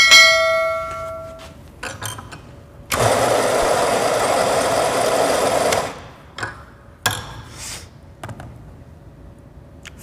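A metal clang that rings for about a second and a half, then an electric espresso grinder grinding coffee into a portafilter for about three seconds, followed by a few light clicks and taps.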